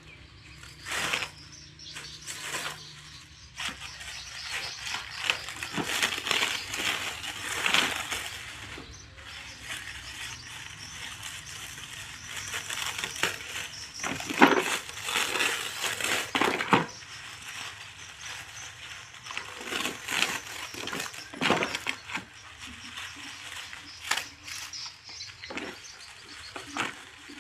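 Packaging rustling and crinkling as tools are unboxed, with scattered clicks and knocks of hard parts being handled.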